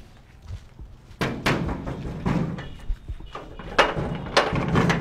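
Knocking and banging on a metal compound gate: several sharp, irregularly spaced knocks.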